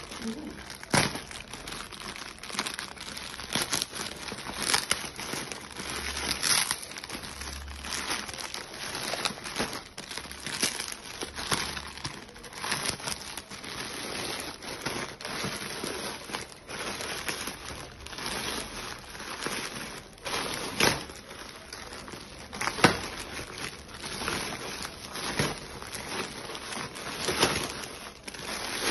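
Plastic packaging being handled, crinkling and rustling irregularly, with many short, sharp crackles.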